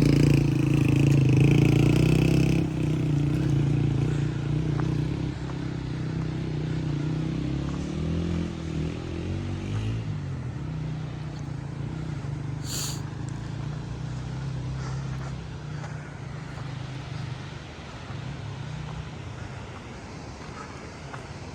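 A motor vehicle's engine running with a steady low hum, its note shifting about nine seconds in, then fading steadily away as the vehicle moves off.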